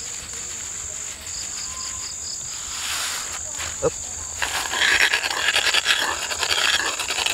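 Crickets chirping steadily in a high insect chorus. From about halfway, a pestle starts crushing and grinding peeled rambutan and sugar in a mortar (an ulekan in a cobek), a dense scraping and squashing that becomes the loudest sound.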